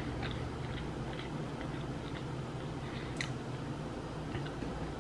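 A person chewing a mouthful of cheeseburger, with soft wet mouth clicks and one sharper smack about three seconds in, over a low steady hum.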